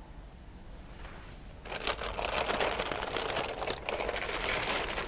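Clear plastic sheeting crinkling and crackling as it is grabbed and pulled by hand. It starts about a second and a half in, after a quiet start, and then carries on as a dense, continuous crackle.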